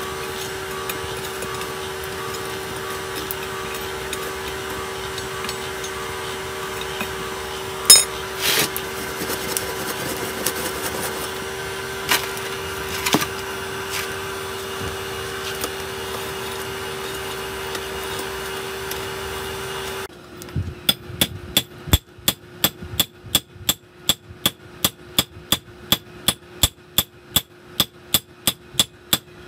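Steady hum of the air blower on a charcoal forge, with a few clinks of iron and tongs in the coals. About two-thirds of the way in it gives way to a hand hammer forging a red-hot iron rod on a stone anvil, sharp ringing blows at about three a second.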